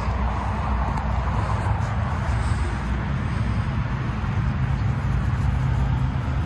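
A steady low rumble with a faint hum in it.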